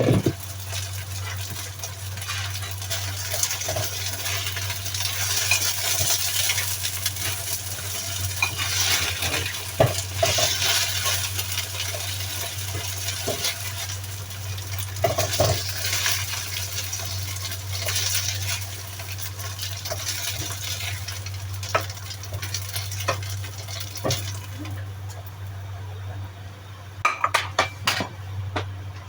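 Ground fish with zucchini and carrot sizzling in a covered pan, with occasional knocks of utensils and cookware, over a steady low hum. The sizzle drops away a few seconds before the end, followed by a few sharp clinks.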